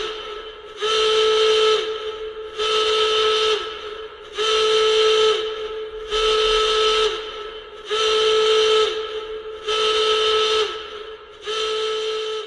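Emergency alert alarm: a horn-like tone with a hissing edge, sounded in repeated blasts about a second long, one every 1.8 seconds or so, each sagging slightly in pitch as it ends. It cuts off abruptly near the end.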